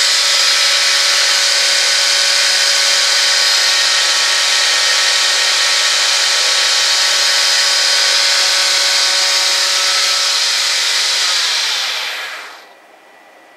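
TM25V milling machine spindle running at about 2000 rpm: a steady, hissy whir with high whining tones that is pretty quiet for this mill. About eleven seconds in, the tones drop in pitch as the spindle winds down, and the sound dies away about a second later.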